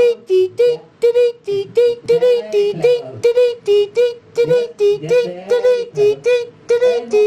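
A high voice singing a quick, even run of short syllables, about three to four a second, mostly on one note with a lower note now and then; it cuts off suddenly at the end.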